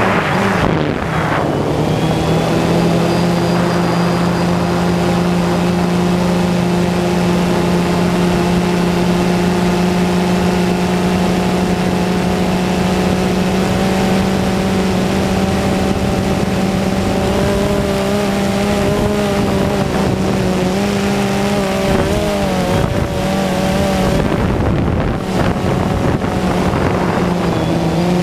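DJI Phantom quadcopter's motors and propellers whining steadily in flight, heard close up from the camera mounted on the drone. The pitch settles in the first couple of seconds and wavers up and down near the end as the drone manoeuvres.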